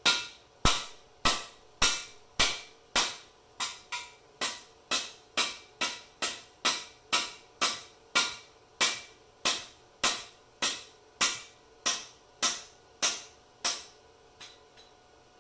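Hammer blows on a cam bearing driver, knocking a cam bearing out of a small-block Chevy 305 block: about two dozen sharp metallic strikes at roughly two a second, stopping near the end.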